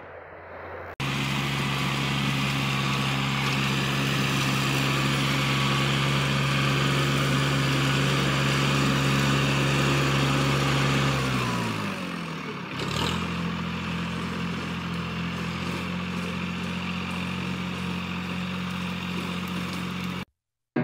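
Tractor engine driving a bush hog (rotary cutter) through brush, held at steady revs. About eleven seconds in, the engine speed sags sharply, then recovers to a slightly lower steady speed. It cuts off abruptly near the end.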